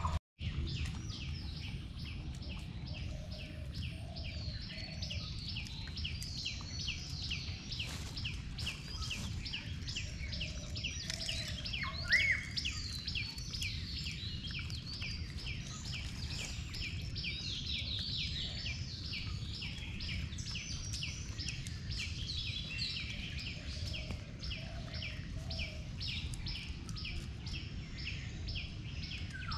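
Outdoor ambience of birds chirping in a fast, steady series, over a low constant rumble. About twelve seconds in, one louder rising call stands out.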